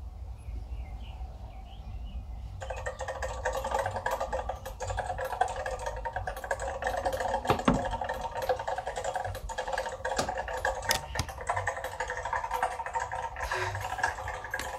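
Recorded mechanical keyboard typing played back over hi-fi bookshelf speakers: a rapid, continuous patter of key clicks that starts abruptly about two and a half seconds in, over a steady low hum.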